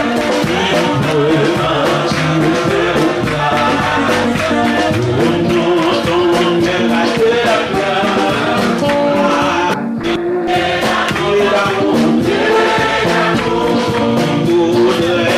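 A congregation singing a gospel worship song together over a steady beat.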